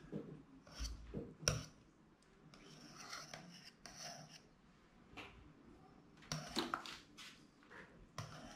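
Wire whisk scraping and clicking against a saucepan as it stirs a thick chocolate cream, in an irregular run of short strokes.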